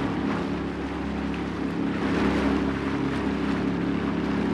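A small wooden tour boat's engine running steadily at cruising speed, with the rush of water and wind as the boat moves along.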